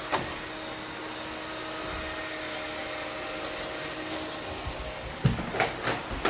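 Robot vacuum cleaners running as they sweep up plastic confetti: a steady whirring hum, with a click right at the start and a few knocks about five seconds in.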